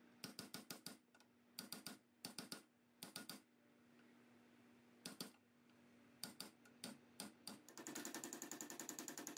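Quick clusters of small, sharp clicks, three to five at a time with short pauses between. About eight seconds in, a small machine starts with a rapid, even rattle.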